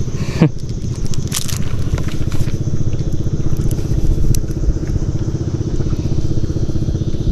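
Small boat engine running steadily with a fast, even low rumble, with a few sharp clicks and crackles from handling the fish and lure.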